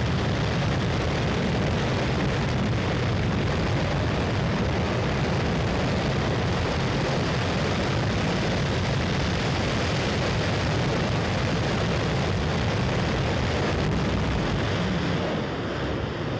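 Space Shuttle Main Engine (RS-25, liquid-hydrogen/liquid-oxygen) on a static test firing: a loud, steady, dense rumble with its weight in the deep low end, easing slightly near the end.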